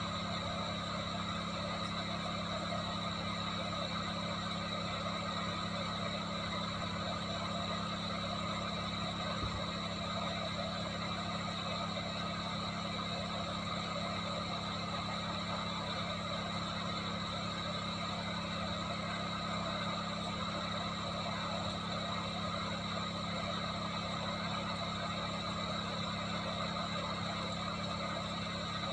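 Hot air rework station blowing steadily: a constant rush of air with a steady hum.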